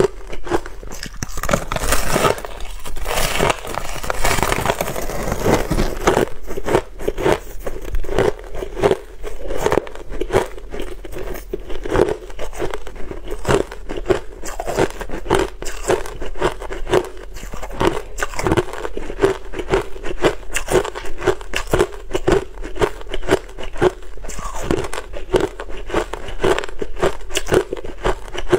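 Crushed ice crackling as it is handled and broken apart, then chewed close to the microphone: a dense, continuous run of crisp crunches.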